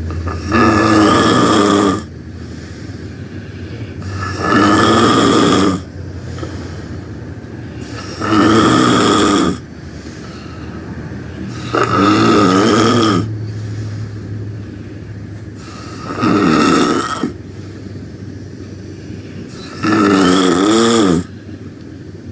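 Loud snoring: six long snores, each about a second and a half, coming about every four seconds with a wavering pitch, and quieter stretches in between.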